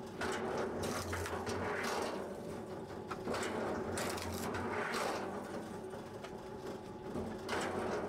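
Powered log splitter running with a steady motor hum while log sections are pushed through its blade, with bursts of cracking and crunching wood as the pieces split, several times.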